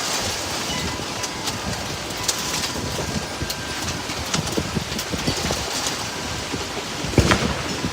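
Heavy thunderstorm rain and gusting wind, a steady rush with scattered sharp drip and spatter ticks and one louder knock about seven seconds in.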